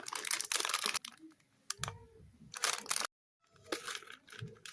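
Crinkly plastic cookie packaging being handled: fast runs of crackles and clicks in short bursts. There is a sudden cut to silence for a moment about three seconds in.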